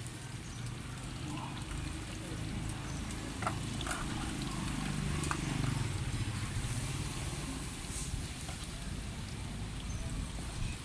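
Street background with a low engine hum that swells and fades in the middle, typical of a motorbike passing. Faint voices and a few sharp clicks sit under it.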